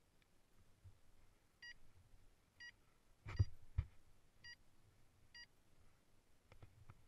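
Four short, identical electronic beeps, evenly spaced about a second apart. Two dull knocks come close together between the second and third beep and are the loudest sounds.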